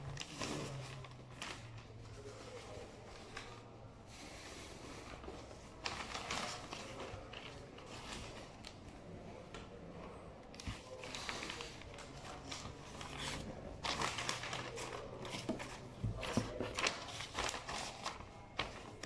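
Gift-wrapping paper rustling and crinkling as it is folded and smoothed around a cardboard box, in irregular bursts that grow busier and louder in the second half.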